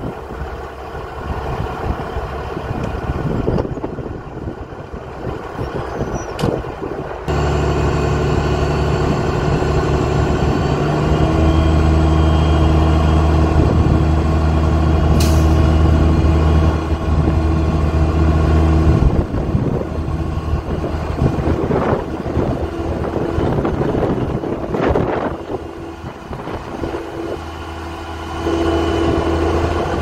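Semi truck's diesel engine running hard to drive the hydraulic hoist as the end-dump trailer's box tips up; its note steps up about seven seconds in and holds steady. A few short hisses of air come in the second half.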